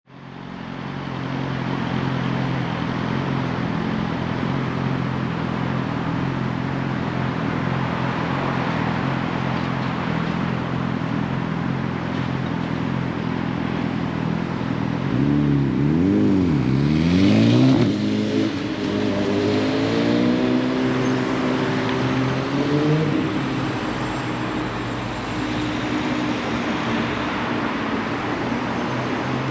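A motor vehicle's engine running steadily. About halfway through, its pitch dips sharply, comes back up, then rises in steps and settles.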